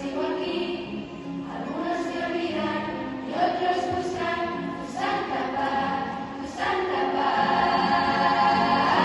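A large choir of female voices singing in parts, in phrases that start afresh every second and a half or so. It grows louder about two-thirds of the way through.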